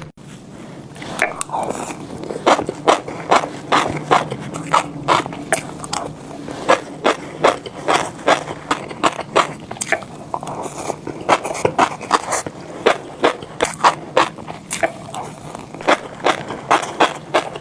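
Close-miked chewing of orange fish roe: crisp little pops and crackles as the eggs burst, several a second.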